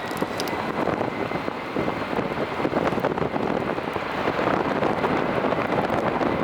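Rain and wind on the microphone: a steady, grainy rushing hiss.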